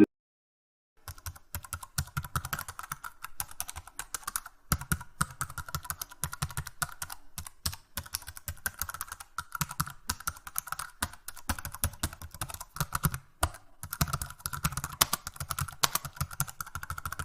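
Typing on a keyboard: a fast run of key clicks that starts about a second in, with a few brief pauses.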